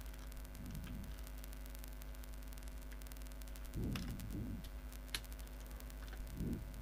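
Steady low electrical hum on the recording microphone, with a few faint computer-keyboard key clicks as a CSS value is typed, and soft low mumbles three times.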